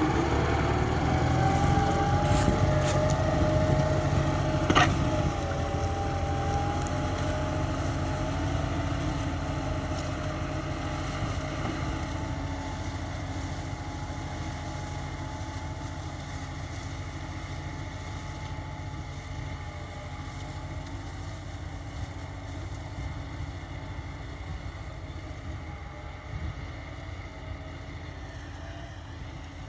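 Kubota M4073 tractor's four-cylinder diesel engine running steadily while ploughing, growing gradually fainter, with one sharp click about five seconds in.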